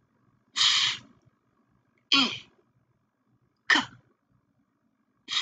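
A voice sounding out the phonics of "thick" one sound at a time: a long breathy "th" hiss about half a second in, then short separate spoken sounds every second and a half or so, with pauses between them.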